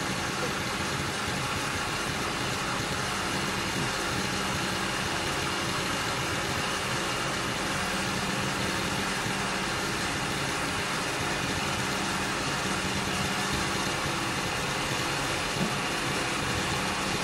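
An engine running steadily at idle, an even hum with a constant pitch.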